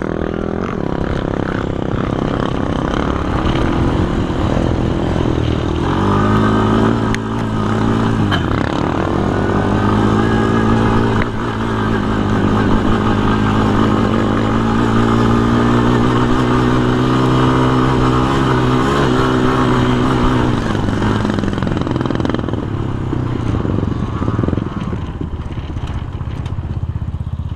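Sport quad engine running at speed across sand, its note holding steady with a brief dip about eight seconds in. The engine eases off after about 21 seconds as the quad slows.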